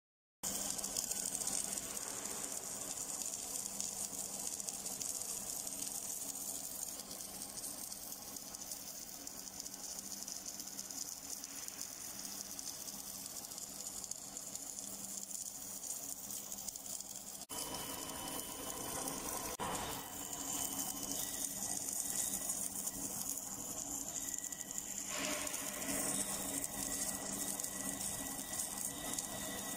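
Automatic MIG welding torch running an arc on a steel pipe turning in a chuck, giving a steady crackling hiss of the arc over a low machine hum. The sound shifts abruptly about 17 seconds in.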